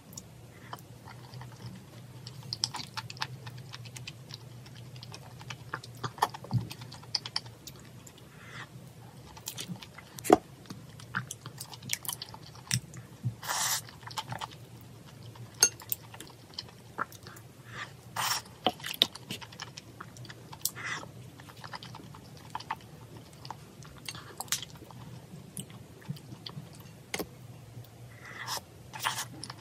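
Close-up eating sounds: chewing of soft, spicy jjamppong porridge with cheese and seaweed flakes, with frequent sharp clicks of chopsticks and a spoon against the pan and bowl.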